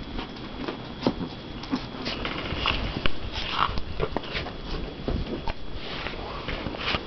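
Yorkshire terriers playing and rolling on a carpet: short breathy noises from the dogs and scattered soft knocks and scuffles.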